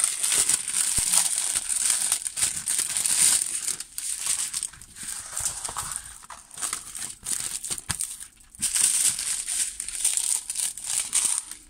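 The glossy plastic film over a diamond painting canvas crinkles as the canvas is handled, in bouts with short pauses, and stops just before the end.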